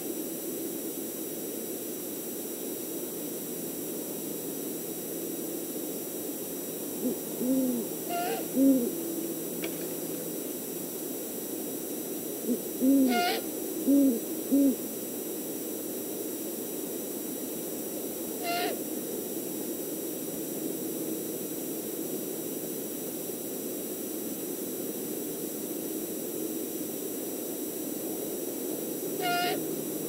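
Great horned owl hooting: two bouts of several deep hoots, the second about five seconds after the first.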